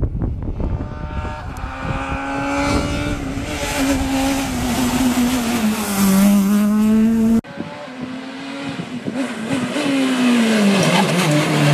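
Rally car engine at full throttle on a stage, its note climbing and dropping through gear changes. About seven seconds in the sound cuts abruptly to another rally car's engine, again rising and falling as it shifts.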